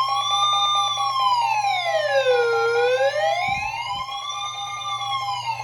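Electronic siren tone wailing slowly up and down, one rise and fall about every four seconds, over steady held alert tones beneath; an emergency alert sound that heralds a broadcast warning. It fades somewhat toward the end.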